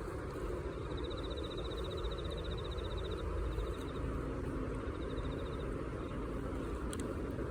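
Steady outdoor background rumble with a high, rapid pulsing trill that starts about a second in and lasts about two seconds, then comes again briefly about halfway through.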